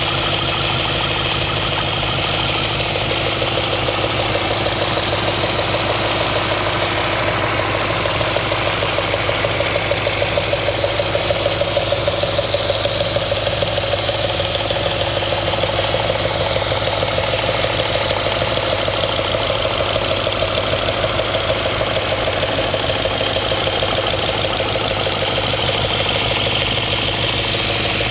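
2004 Audi S4's 4.2-litre V8 idling steadily with a rapid, even knock running through it: the engine knock at idle that the owner is chasing.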